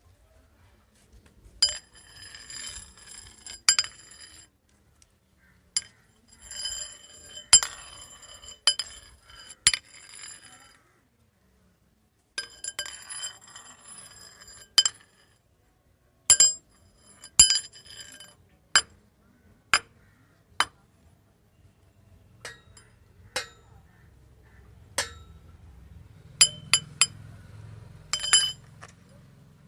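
Metal rods clinking and striking against each other, each hit ringing on at several high, bell-like pitches. Three spells of rapid jingling strikes give way to single sharp taps about a second apart.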